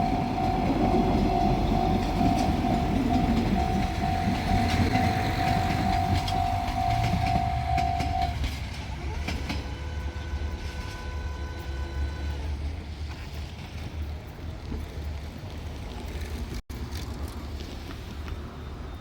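Japanese level-crossing warning bell ringing in a steady repeating pattern while a three-car KiHa 185-series diesel train runs over the crossing. The bell stops about eight seconds in, and the train's running sound carries on more quietly and fades.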